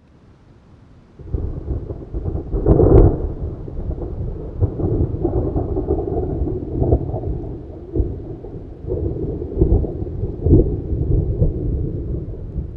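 Thunderstorm sound effect: thunder rolls in about a second in, with its loudest crack about three seconds in, then keeps rumbling with several more sharp claps over a steady hiss of rain.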